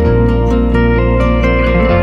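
Soft instrumental background music of plucked strings, notes following one another at a steady pace.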